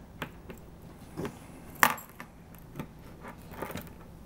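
A small bunch of keys jangling and clicking as a key is fitted into a key switch on a plastic toolbox lid and turned. It comes as a handful of separate clicks, the sharpest a little under two seconds in.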